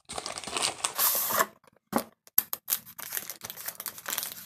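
Cardboard cornstarch box being torn and pried open at its top flap: a rough tearing rasp for about the first second and a half, then a run of small clicks and crackles as the cardboard flaps are worked.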